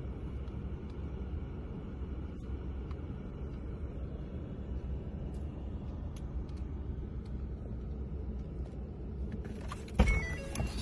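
Steady low rumble of a car heard from inside its cabin, with a few faint ticks. Near the end a sudden louder sound cuts in.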